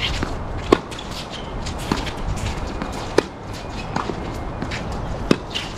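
Tennis ball struck by rackets during a doubles rally: about five sharp pops roughly a second apart. Shoes scuff and patter on the hard court between the hits.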